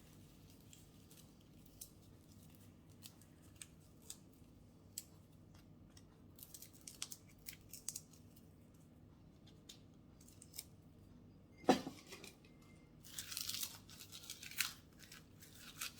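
Dried mushroom being crushed up by hand: faint, irregular crackling and crunching of the brittle pieces, denser a little after the middle, with one sharper knock about twelve seconds in.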